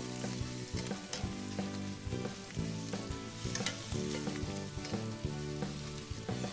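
Lobster meat sizzling in hot garlic butter in a pan on the grill, with a utensil clicking and scraping now and then as it is stirred.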